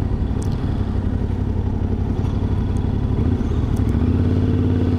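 Yamaha Ténéré 700's parallel-twin engine running at low road speed as the bike slows for a roundabout. About three to four seconds in, the engine note changes and settles into a steadier hum.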